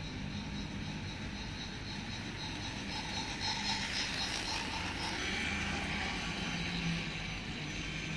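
Toy train running on plastic track, a steady whir and rattle that grows a little louder as its freight wagons come past.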